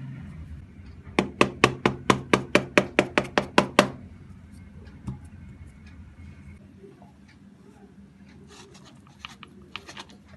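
Light, quick taps on an upturned cake tin to knock the cake loose onto a plate, about fourteen taps in two and a half seconds, starting about a second in. A few faint clicks follow near the end.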